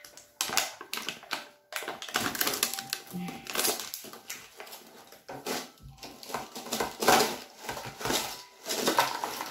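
Crisp potato chips crackling and crunching in quick, irregular clicks as they are handled and taken out of a cardboard Lay's Stax canister.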